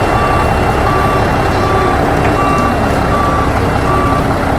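Truck reversing: the engine runs steadily while a backup alarm beeps evenly, about one beep every three-quarters of a second.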